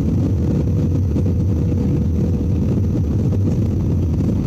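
Steady low rumble of a jet airliner's engines and rushing air heard inside the cabin on final approach to landing.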